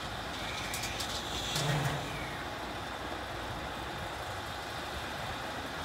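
Ten-wheel dump truck's diesel engine idling steadily while its tipper body is lowered, with a few short clicks between one and two seconds in.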